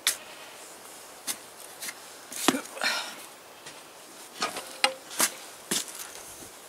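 Shovel digging in soft sand: about a dozen irregular scrapes and sharp knocks of the blade, one with a short metallic ring near the middle.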